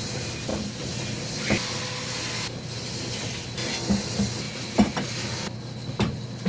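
A steady hum with several sharp, irregular knocks.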